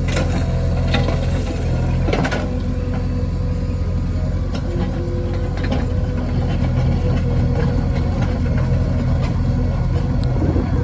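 Diesel engine of a JCB 3DX backhoe loader running steadily, with scattered sharp metallic knocks and clanks over it.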